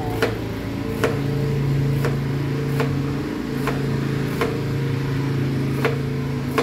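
Kitchen knife slicing a daikon radish on a plastic cutting board: a sharp chop each time the blade hits the board, about one every 0.8 seconds, over a steady low hum.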